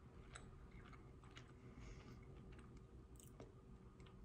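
Faint chewing of a bite of crispy-fried plant-based burger patty: a person chewing with the mouth closed, with scattered soft clicks of the mouth.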